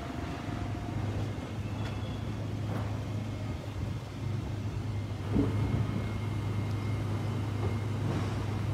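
Toyota Land Cruiser's V8 petrol engine running steadily at low revs as a low, even hum. There is one short thump about five seconds in.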